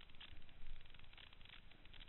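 Mountain bike rattling and its tyres crunching over a stony dirt trail: a dense run of irregular clicks and knocks over a steady low rumble.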